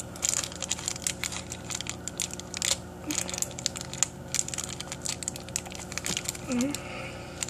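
Small clear plastic package crinkling and crackling in irregular bursts as fingers squeeze and pull at it to get it open.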